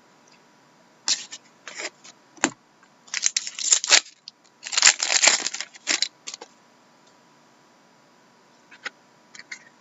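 Trading cards and their plastic sleeves being handled: a run of short rustling, sliding and crinkling noises, densest from about three to six seconds in, then a few light clicks near the end.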